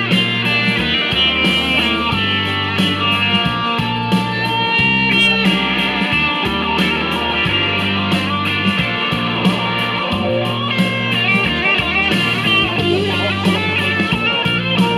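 Background music: a blues-rock instrumental with electric guitar over a steady, stepping bass line.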